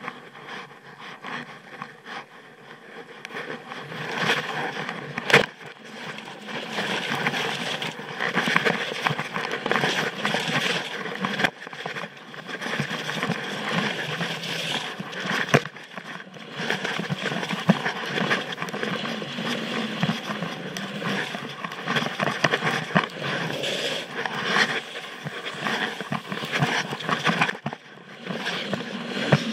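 Skis scraping over snow through a run of turns, with scattered sharp clicks and knocks. Quieter for the first few seconds, then louder once the skiing gets going.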